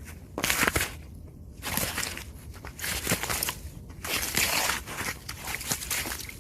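Icy, crusted snow being scratched and tapped: a series of about five short scraping strokes with sharp clicks, each under a second long, with brief pauses between them.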